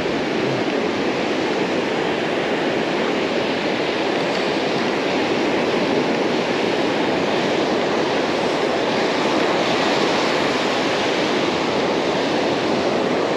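Ocean surf breaking and washing up over a sandy beach: a steady rushing noise that never lets up.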